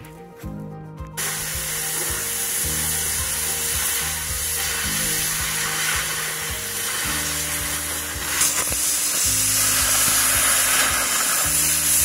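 Oxy-fuel cutting torch hissing steadily as it cuts through a rusty steel beam, starting about a second in and getting louder past the middle. Background music plays underneath.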